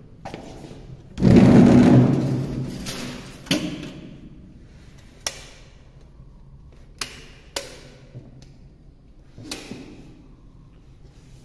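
A heavy thump about a second in that dies away over a couple of seconds, followed by a handful of sharp, irregularly spaced knocks.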